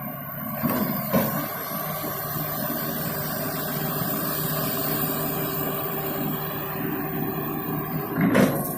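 Komatsu excavator's diesel engine running steadily under work, with a few short knocks about a second in and a louder one near the end.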